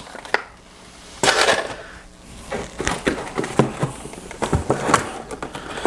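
Clear plastic bags around model-kit parts crinkling and rustling as they are handled in a cardboard box, with a few light knocks.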